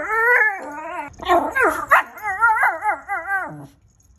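Miniature pinscher's odd bark at a bird outside the window: a run of high, wavering yelps whose pitch wobbles up and down, more yodel than woof. The calls stop shortly before the end.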